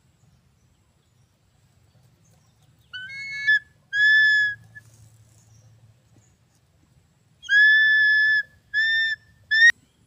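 An eagle calling: five high, clear whistled calls, two about three seconds in and three more from about seven and a half seconds, the last one short and rising. A sharp click comes right after the last call.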